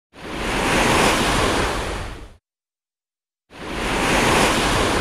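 Two whoosh sound effects from an animated subscribe end card. Each is a rush of noise that swells and fades over about two seconds, and the second starts about three and a half seconds in after a moment of silence.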